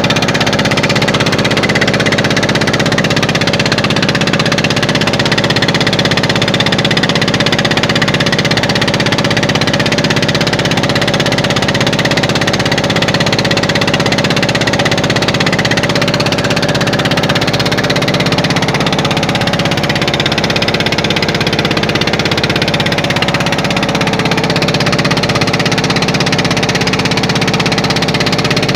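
An engine running steadily at a constant speed, loud and unbroken.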